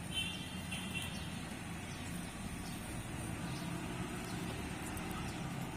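Steady low background rumble, with a brief high-pitched chirp in the first second and a few faint clicks.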